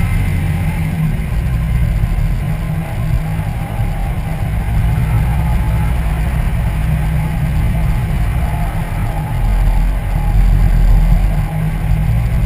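A car driving along a paved street, picked up by a camera on its front grille: a steady low rumble of wind buffeting the microphone and tyre and road noise, with some engine hum.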